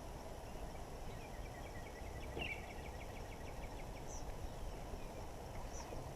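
A small bird singing a quick trill of repeated high notes, with a couple of short high chirps later, over a steady low outdoor rush.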